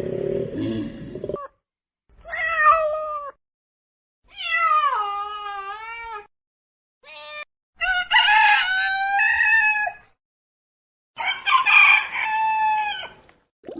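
A string of separate animal calls, cat meows and rooster crows, five in a row, each lasting from a fraction of a second to about two seconds, with a complete silence between them.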